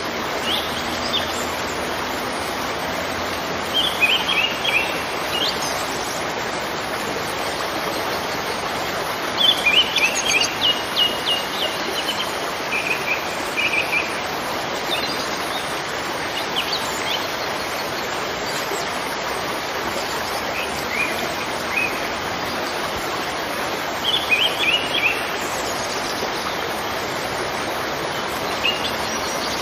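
Outdoor nature ambience: a steady rush of flowing water, with small birds chirping in short runs of high notes every few seconds.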